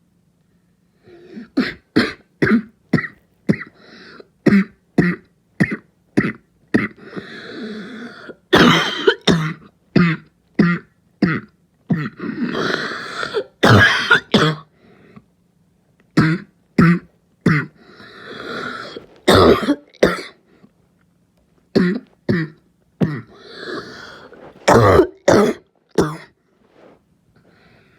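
A person's barking cough in repeated fits, each fit a quick run of short, sharp coughs, with long noisy breaths drawn between fits. It starts about a second in and ends shortly before the close.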